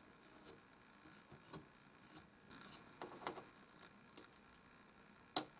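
Faint, scattered small clicks and taps of laptop parts being handled and taken off, with one sharper click about five seconds in.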